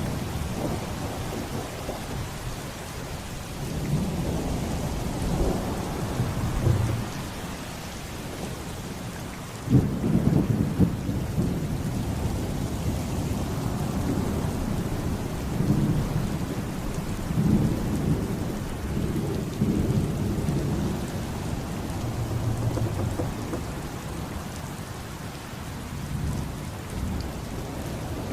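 Thunderstorm: steady rain with thunder rolling on and off, swelling and fading, and a sudden loud crack of thunder about ten seconds in.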